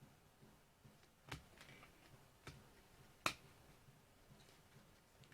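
Near silence broken by three light clicks, about a second apart, as trading cards are handled; the last, about three seconds in, is the sharpest.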